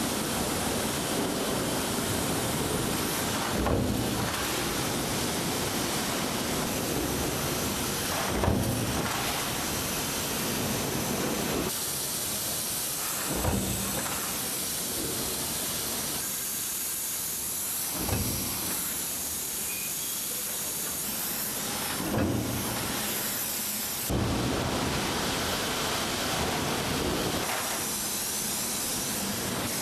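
Factory machinery noise: a steady hiss broken by a heavy thump every four to five seconds. The character of the hiss changes a couple of times.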